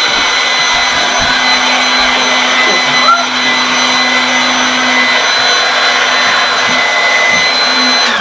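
Electric air mattress pump running steadily with a constant whine, inflating a mattress that had gone flat. At the very end it switches off and winds down with a falling pitch. The owner says the mattress has a leak.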